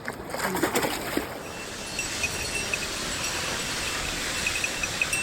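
Mountain stream water rushing steadily, with a few short clicks and knocks in the first second or so.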